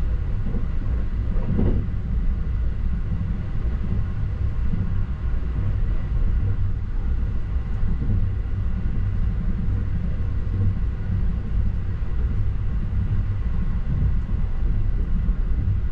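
Sunrise Seto sleeper train (a 285 series electric train) running at speed, heard from inside a compartment as a steady low rumble of wheels and car body.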